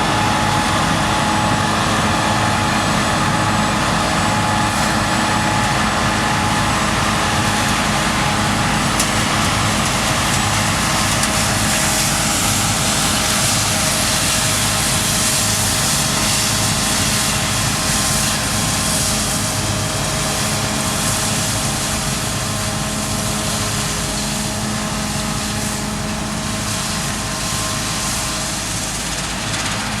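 Claas Lexion 7600 combine harvester running steadily at working speed, its engine drone mixed with the noise of the harvesting machinery. It becomes a little quieter over the last ten seconds.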